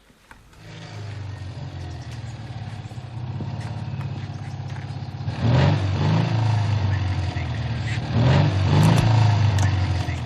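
A motor vehicle engine running and building up, with two louder revving surges in the second half.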